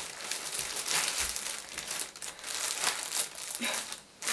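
Plastic packaging crinkling and rustling as it is handled and opened, in uneven bursts that pause briefly near the end.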